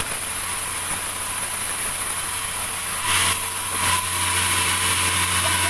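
Sawmill machinery running steadily with a low, even hum, and a brief hiss about three seconds in.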